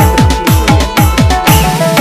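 Santali trance dance track: a deep electronic kick drum about four times a second under a synth melody. About one and a half seconds in the kick drops out for a short fast drum roll and a hiss, then the beat comes back.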